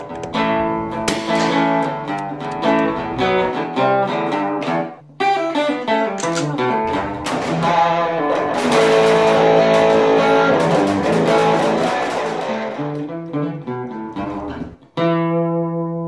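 Intro music on guitar: a run of plucked notes, a fuller strummed passage in the middle, and a final chord struck near the end that rings and fades.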